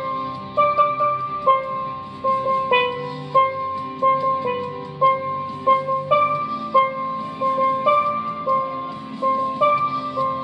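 Double tenor steel pans played as a melody: struck, ringing notes at a steady pace of about two a second, with a few quicker pairs.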